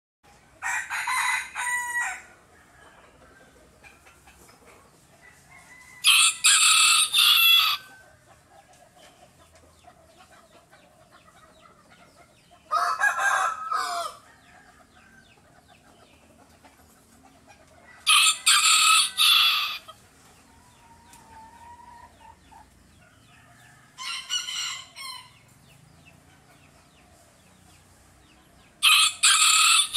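Rooster crowing again and again, six loud crows about five to six seconds apart, each lasting a second and a half to two seconds, with faint clucking between them.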